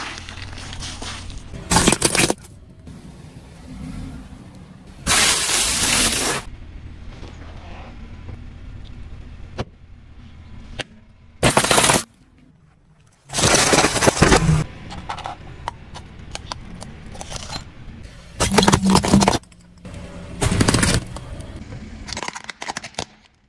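A car's tyre rolling over and crushing small objects such as plastic toys: six loud cracking, crunching bursts, each up to about a second long, with the car's low rumble between them.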